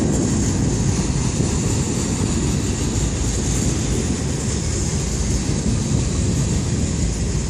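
Freight train cars rolling past close by: a steady rumble of wheels on the rails, with a constant high hiss over it.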